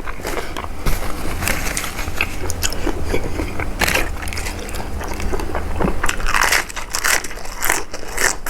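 A person eating close to the microphone: irregular wet chewing, lip smacks and bites into a spicy seafood salad.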